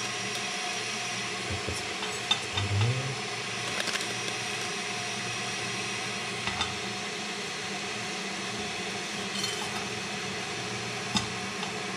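A few light metallic clinks and taps from stainless steel kitchenware (tea-infuser baskets and a steel pot lid), spread out over a steady hiss.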